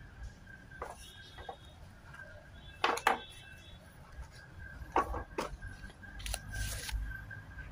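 A few sharp clicks and knocks, the loudest a quick pair about three seconds in, over a faint steady high tone.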